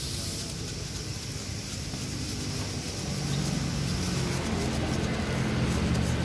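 An engine hums steadily and grows louder over the second half, over the scratchy rasp of a brass wire brush scrubbing a dirty motorcycle crankcase.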